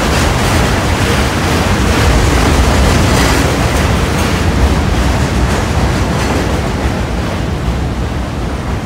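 New York City Subway R32 cars, Budd-built stainless steel, running past the platform at speed: a loud, steady rumble of wheels on rail that eases a little near the end.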